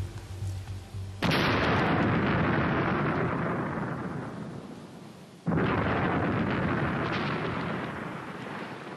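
Two large explosions of demolition charges blowing up a railway bridge, about four seconds apart. Each is a sudden blast followed by a long rumble that slowly dies away.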